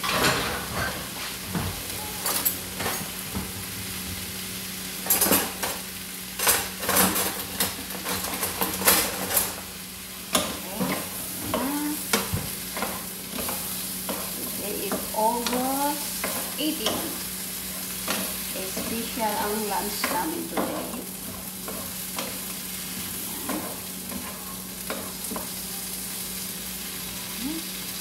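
Shrimp and vegetables sizzling in a large frying pan while a wooden spatula stirs and scrapes them, with frequent sharp scrapes and knocks against the pan in the first half. A steady low hum runs underneath.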